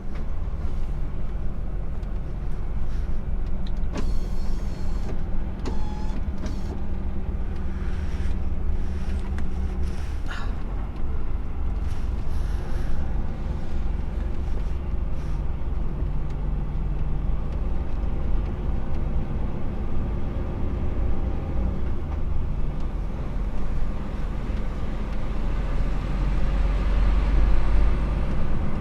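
HGV lorry's diesel engine running as the truck drives slowly, heard from inside the cab: a steady low rumble with shifting engine tone and a few knocks and rattles, swelling louder near the end.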